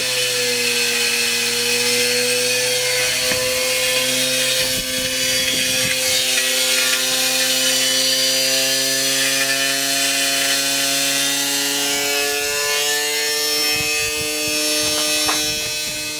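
Front-load washing machine's drive motor, out of the machine and still wired up, running with a steady whine made of several tones that drift slowly in pitch.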